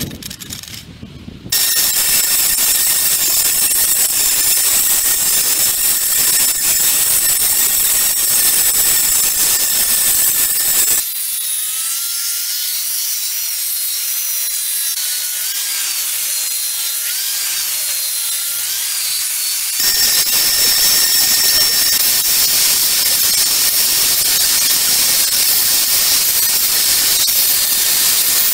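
Belt sander driven by a Metabo WE 18 Quick RT 7-inch angle grinder, starting up about a second and a half in and running at high speed with a steady high whine and the hiss of the abrasive belt grinding and sanding. The sound changes abruptly twice, where it drops lower and the whine wavers, then comes back louder.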